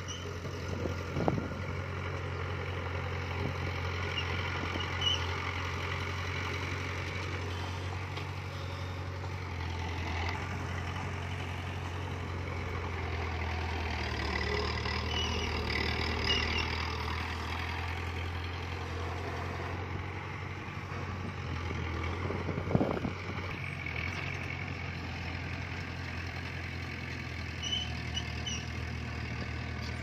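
Diesel engine of a heavy earthmoving machine running steadily, with a few sharp metallic clanks, the loudest about 23 seconds in.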